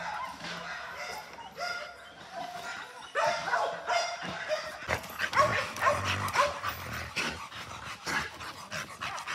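Hound dogs barking and yipping in short calls, heaviest about three seconds in and again from about five to seven seconds.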